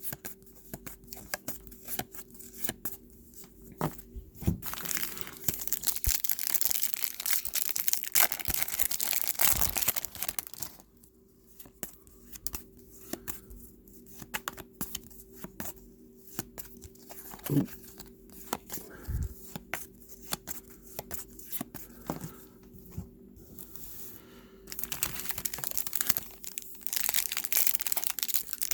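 Trading-card pack wrappers being torn open and crinkled, with stretches of rustling and sharp clicks and taps of cards being handled in between.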